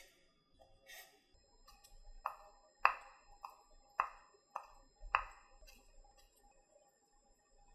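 Chef's knife cutting down through a folded thin egg crepe onto a wooden cutting board: six quick taps about half a second apart, each with a brief ringing ping.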